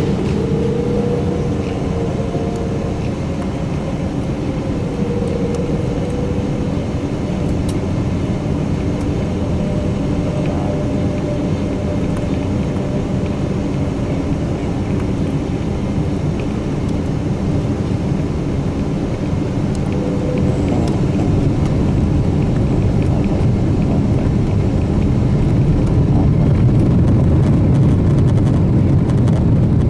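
Boeing 777-200 cabin noise heard from a window seat: the steady rumble of the jet engines and the aircraft rolling on the ground. It grows gradually louder through the second half.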